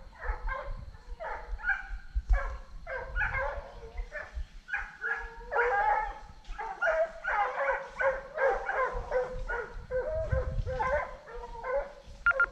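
A pack of hunting dogs baying and yelping in quick, overlapping calls while trailing a wild boar through cover.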